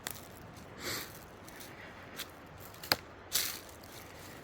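Scattered crunching footsteps on rough ground, with a single sharp snap about three seconds in.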